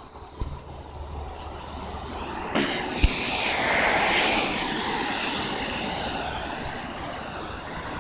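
A vehicle passing, growing louder to its loudest about four seconds in, then slowly fading, with a sharp click about three seconds in.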